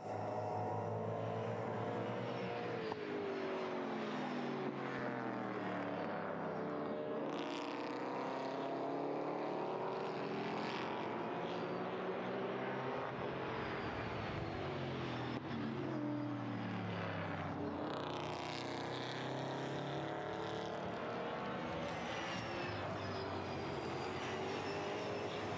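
BMW M3 E92 race cars' V8 engines at racing speed, two cars close together. Their revs rise and fall over and over as the engine notes overlap.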